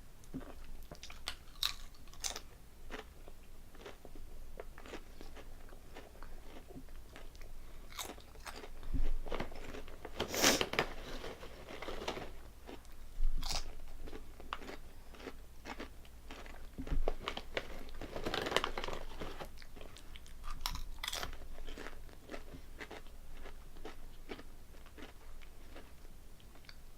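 Potato chips (Calbee Honey Butter Chips) being bitten and chewed close to the microphone: a steady run of sharp crunches, with a few louder, longer stretches about ten and eighteen seconds in.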